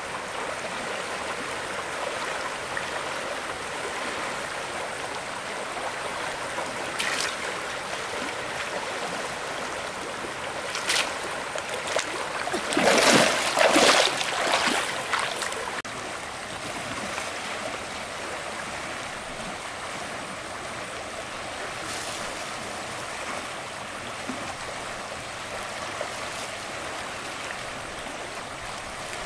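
A stream runs steadily. Near the middle comes a brief flurry of louder, irregular sharp noises, with a few single clicks before and after it.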